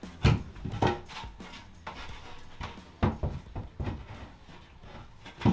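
Marine-grade plywood bulkhead panel knocking against the fiberglass hull as it is pushed into place for a test fit: several irregular wooden thumps.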